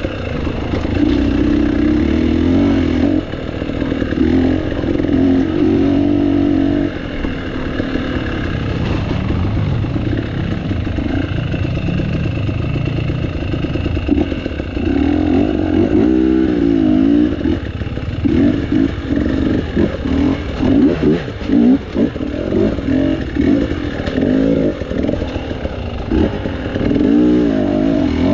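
Off-road dirt bike engine running under load, its revs rising and falling. About two-thirds of the way in the throttle turns choppy, with many short on-off surges.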